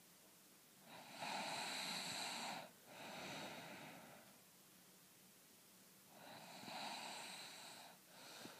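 A person snoring through the nose: two noisy breaths about five seconds apart, each a loud part, a short break, then a softer part.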